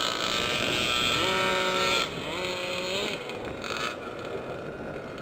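Small engine of a gas-powered RC off-road truck revving up and down twice, its pitch rising, holding briefly and falling, over a steady hiss during the first two seconds. The engine drops quieter after about three seconds.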